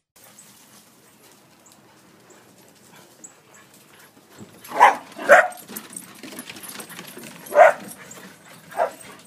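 A dog barking four times in short single barks, two in quick succession about halfway through and two more spaced out near the end.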